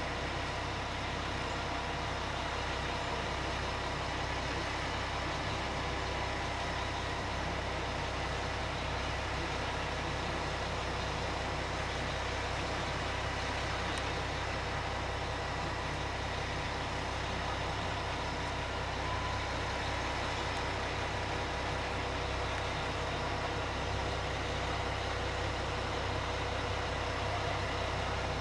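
McNeilus Pacific front-loader garbage truck idling steadily, a constant low engine hum with a faint steady whine above it.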